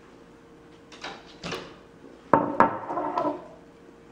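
Kitchen clatter: a metal spoon knocking and scraping in a plastic tub of chopped chicken, and a glass sauce bottle set down on a granite countertop. A few sharp knocks; the loudest pair comes about halfway through and rings briefly.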